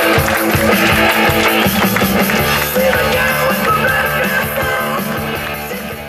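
Loud rock-style music with guitar and drums; the steady drum beat gives way to held bass notes about two seconds in.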